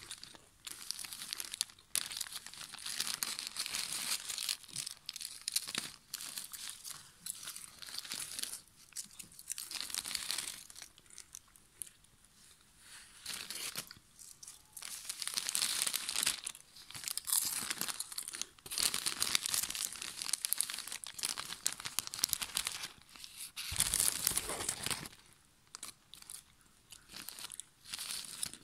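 Lay's potato chips crunching and their foil bag crinkling as fingers rummage through and crush the chips, in repeated crackly bursts of a second or two with short pauses between.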